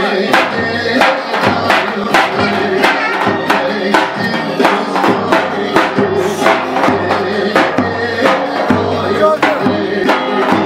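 Folk dance music: a davul, the large double-headed bass drum, beaten in a steady dance rhythm under a melody line of held notes.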